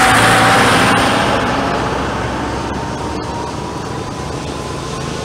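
A white minibus driving past close by and pulling away, its engine and tyre noise loudest at first and fading over the first couple of seconds, with a faint falling whine. After that a steady background noise continues.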